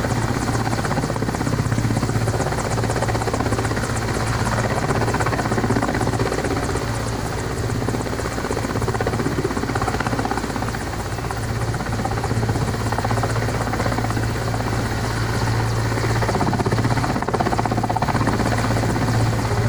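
Helicopter rotor and engine running steadily and loudly, with a constant rotor chop throughout.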